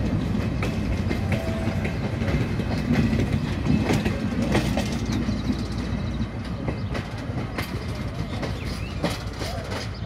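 Passenger coaches of a diesel-hauled train rolling past at speed, wheels clacking over the rail joints. The sound fades once the last coach passes, about six seconds in, and the train moves away.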